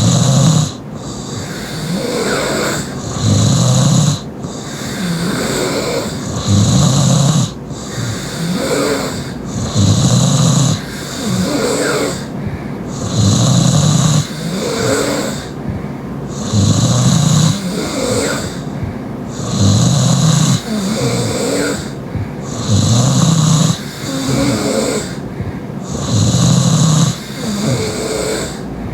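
Heavy open-mouth snoring from a sleeping young woman: a loud snore about every three and a third seconds, nine in all, with quieter breathing between.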